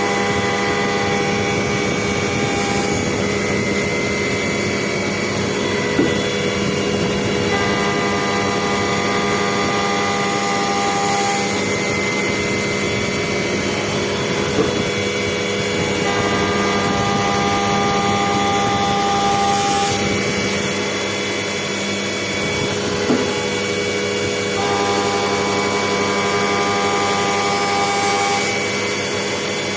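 CNC vertical machining centre milling: a steady whine from the spindle and cut, with a set of higher tones that comes in for about four seconds roughly every eight to nine seconds as the cutter makes its passes, and a few faint clicks.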